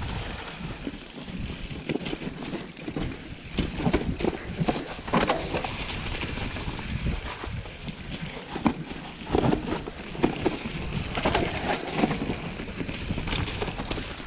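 Mountain bike riding downhill over wet leaves, mud and roots: tyres rolling and skidding through the leaf litter, with frequent knocks and rattles from the bike over a steady low rumble.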